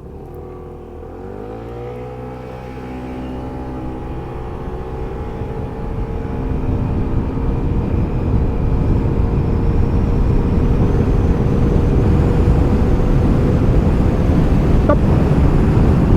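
Piaggio Medley S 125 scooter's single-cylinder engine at full throttle from a standstill, in a 0 to 100 km/h run. The revs climb sharply in the first two seconds and then hold at an almost steady pitch as speed builds, while wind and road noise grow steadily louder.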